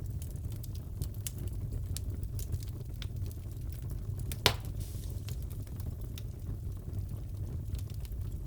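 Wood fire crackling in a fireplace: a steady low rumble with scattered small crackles and one loud pop about halfway through.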